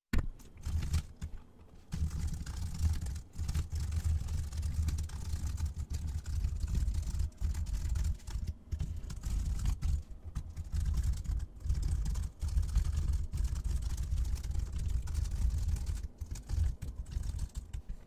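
Fast typing on a computer keyboard: a rapid, continuous run of keystrokes, each with a deep thud under the click, broken by a few brief pauses.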